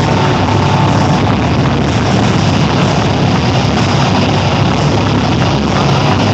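Loud, steady din of a packed indoor stadium crowd, recorded on a phone's microphone.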